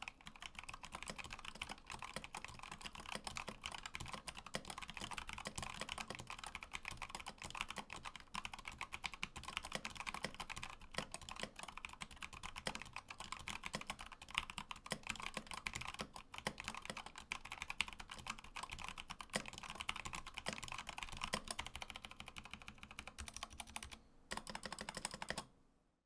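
Steady fast typing on an Input Club Kira mechanical keyboard fitted with Hako Clear tactile box switches: a dense run of key clacks that pauses briefly near the end and then stops.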